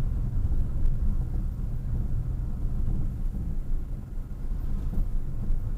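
Steady low rumble of a car being driven slowly, engine and road noise heard from inside the cabin.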